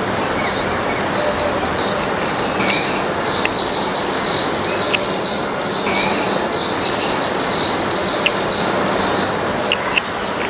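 Many small birds chirping continuously in dense, overlapping high calls over a steady background rush of noise, with a few sharp ticks.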